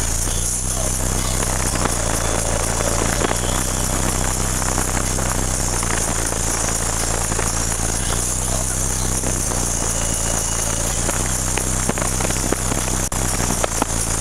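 High-powered car-audio subwoofers playing a steady, deep bass drone at very high level in a truck cab, strong enough to blow the passenger's hair around.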